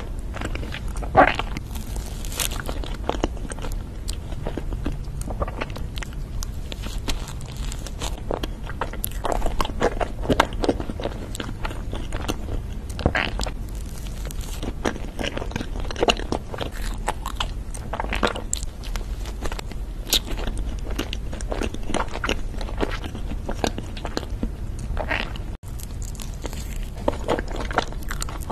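Biting and chewing chocolate-coated snack cakes, with many small sharp crackles and clicks at an irregular pace.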